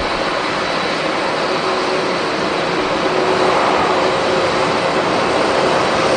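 Jet airliner engines running, a steady rush with faint whining tones, growing louder about three seconds in.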